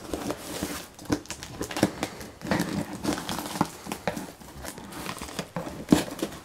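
Packing tape on a cardboard box being slit with a pocket knife and pulled away, and the cardboard flaps being pried open, giving a string of irregular sharp rasps, crackles and scrapes.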